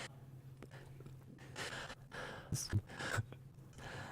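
A person breathing into a close microphone: several short inhales and breaths in a row, with a few small clicks and a steady low hum underneath.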